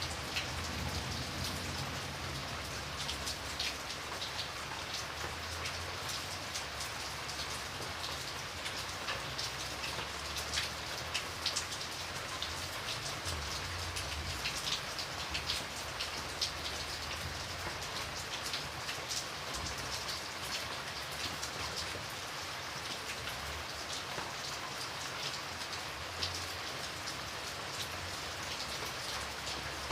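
Steady rain falling on a surface, an even hiss with many close, sharp drop impacts, over a low rumble.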